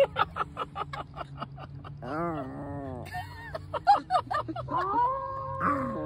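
Small white fluffy dog howling with its head raised: a quick run of short yips, a brief howl that rises and falls, then a longer held howl near the end.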